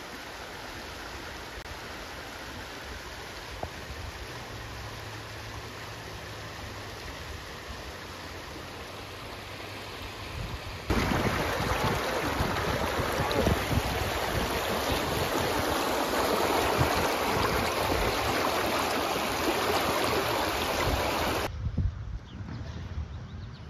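Wind rushing over the microphone outdoors. It gets much louder with low buffeting about eleven seconds in, then drops away suddenly a couple of seconds before the end.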